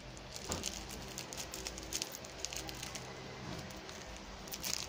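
Soy sauce and calamansi pan sauce sizzling and bubbling in a frying pan, with many small crackling pops.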